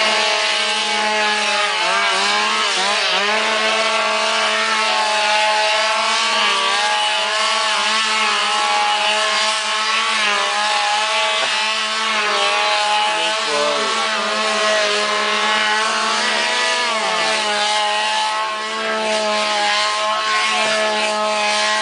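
Several two-stroke chainsaws held aloft and run at full throttle together, making a steady, loud combined drone whose pitches waver and dip now and then as the throttles are worked.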